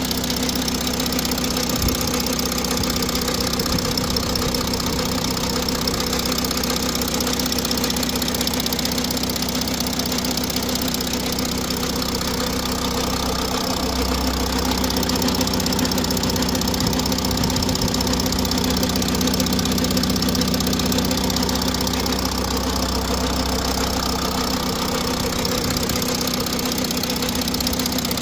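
Audi A6 C8 45 TDI's V6 diesel engine idling steadily with a strange noise that the owner is recording. A deeper drone comes in about halfway through and drops away again near the end.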